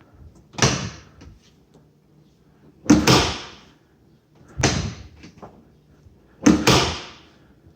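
A door being slammed shut four times, about two seconds apart, each slam a loud bang that fades away briefly.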